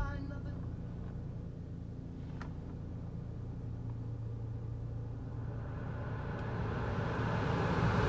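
Steady low hum of a parked 2012 Chevy Cruze, heard from inside the cabin, with a single click a little over two seconds in. From about six seconds in, the climate-control blower fan is switched up, and a rush of air builds steadily louder.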